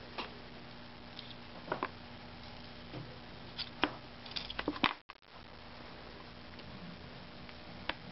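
Light scattered taps and clicks from trimming a block of Sculpey polymer clay with a small knife on a wooden workbench, as scraps drop and the knife and hands touch the board; the clicks bunch together about four to five seconds in. A faint steady hum runs underneath.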